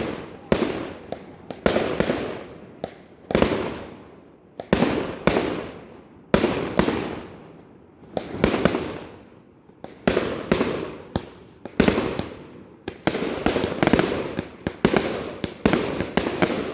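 Fireworks exploding one after another, each sharp bang fading away over about a second. The bangs come faster and overlap near the end.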